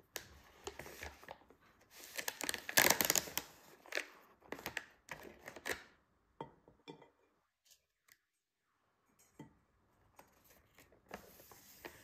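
Plastic bag of cookies being handled and opened, rustling and crinkling, loudest about three seconds in. A few soft clicks follow in a quieter stretch as cookies are set on a plate, then more rustling near the end.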